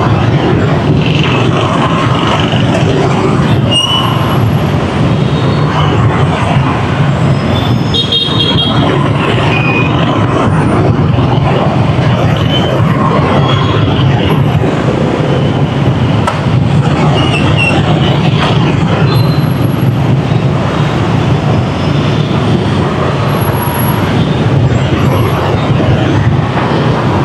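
Heavy rush-hour street traffic running steadily, a dense mass of vehicle engines and tyre noise, with short horn beeps sounding now and then.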